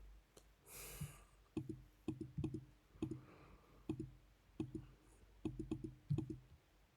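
Soft clicks in irregular clusters of two to four, repeating through the pause, with a short hiss about a second in.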